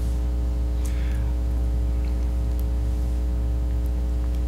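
Steady low electrical mains hum, with a row of fainter, higher steady tones above it.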